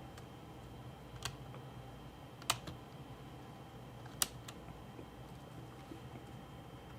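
Three sharp little plastic clicks, spread over a few seconds, as small wire connectors are popped out of their sockets on a laptop motherboard, over a faint steady hum.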